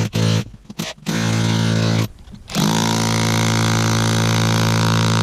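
Battery-powered jackhammer chiselling into cap rock with a loud, steady buzzing hammer. It stops briefly twice in the first half, then runs without a break from just under three seconds in.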